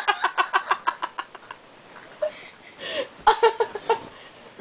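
Laughter: a rapid run of short 'ha' pulses that trails off about a second and a half in, then another short burst of laughing around three seconds in.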